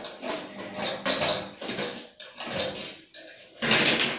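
Irregular rattling and scraping of the metal parts of a gas water heater as its heat exchanger and brass pipe fittings are handled during disassembly, with a louder rattle near the end.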